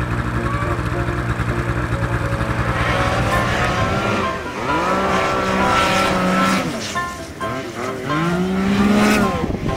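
Snowmobile engine running steadily, then, after a change of scene, revved up and let off twice with its pitch rising and falling, as a sled flounders in deep powder snow.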